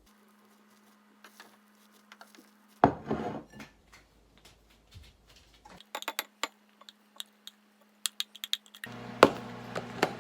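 Clinks and knocks of dishes and kitchen utensils being handled, with one loud knock about three seconds in and a quick run of light clicks later. Near the end a steady appliance hum starts abruptly.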